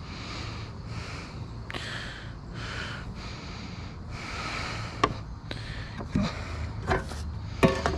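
A person breathing heavily near the microphone, about one breath a second, then four sharp knocks and clunks in the last three seconds as items are handled, over a low steady hum.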